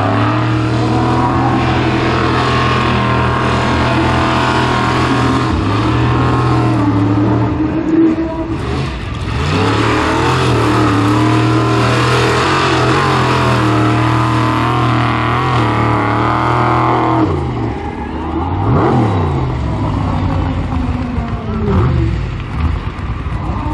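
Formula Offroad hill-climb car's engine at high revs under full load as it claws up a steep sand slope. The pitch holds steady for long stretches and sags briefly a few times. In the last few seconds it revs up and down in short blips.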